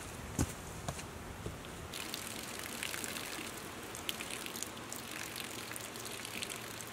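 A man urinating onto the dirt and leaf litter of the forest floor, a steady trickle and splash with a few faint clicks over it.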